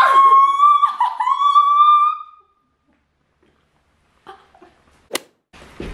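Two women giving a long, high-pitched excited scream that lasts about two seconds and then stops. A single sharp click follows about five seconds in.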